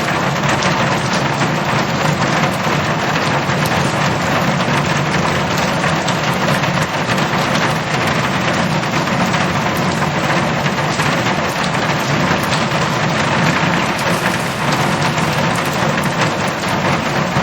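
Heavy rain falling on a metal roof, a dense, steady patter with no let-up.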